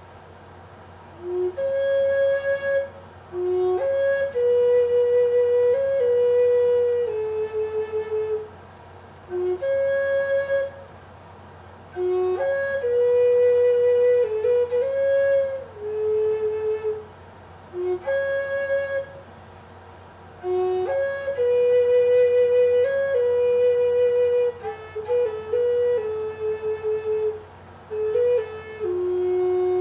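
A flute playing a slow melody in phrases of held notes with short breaths between them, the same phrase returning several times, ending on a long low note.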